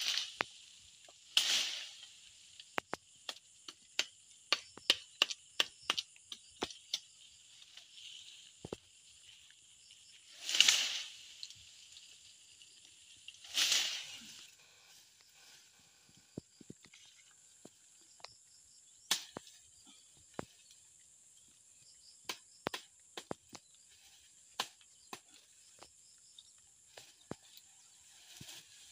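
Scattered sharp snaps and taps of a long wooden pole knocking and poking among tree branches, with three louder rustles of leafy branches, near the start and twice in the middle. A steady high insect drone runs underneath.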